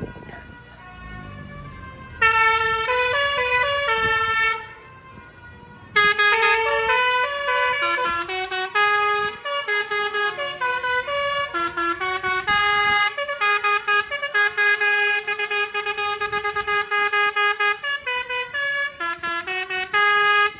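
Bus telolet basuri musical air horn playing a tune of held notes: a short phrase of a few notes, a pause of about a second and a half, then a longer melody of quick note changes that cuts off suddenly.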